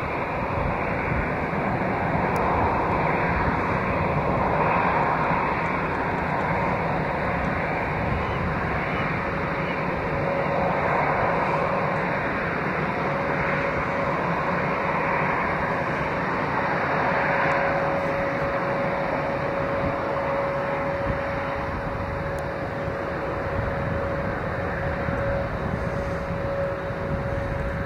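Aircraft engine noise: a steady, dense rumble, joined about ten seconds in by a steady whine that grows stronger toward the end.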